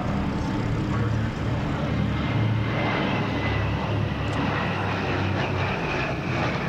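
The four radial piston engines of a Short Sunderland flying boat droning steadily as it makes a low pass close overhead.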